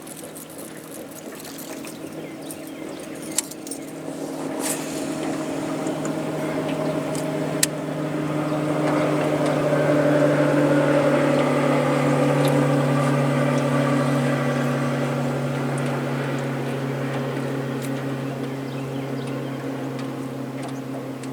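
Motorboat engine droning at a steady pitch. It grows louder to a peak about halfway, then slowly fades. Two sharp ticks come in the first several seconds.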